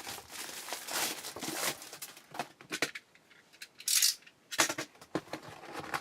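A razor blade cutting the shrink wrap on a sealed trading-card hobby box, and the box being opened by hand: scratchy plastic-and-cardboard handling noise with small clicks, and a brief sharp rasp about four seconds in.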